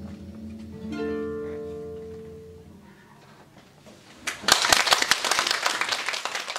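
Concert harp plucking a final chord that rings out and fades away, followed about four seconds in by audience applause, which is the loudest sound.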